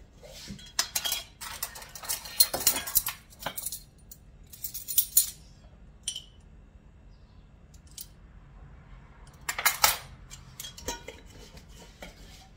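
Metal measuring spoons clinking and rattling in short bursts: a long spell about a second in, a shorter one around five seconds, and another near ten seconds.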